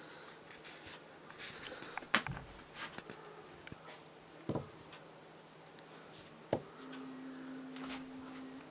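A young lop-eared rabbit moving about on a cloth-covered table: light scratching and tapping of its paws, with three sharper knocks about two, four and a half and six and a half seconds in.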